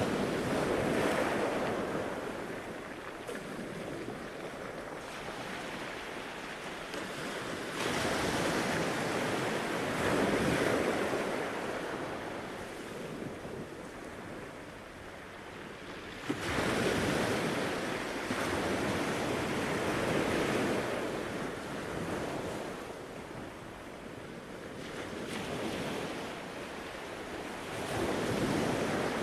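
Gulf surf breaking and washing up the beach, swelling and fading as each set of waves comes in every several seconds, with some wind on the microphone.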